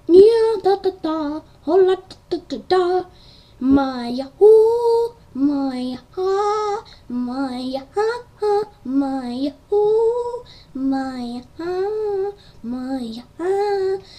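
A single high voice singing a simple melody unaccompanied, in short notes that swing back and forth between a lower and a higher pitch, phrase after phrase with brief breaks between.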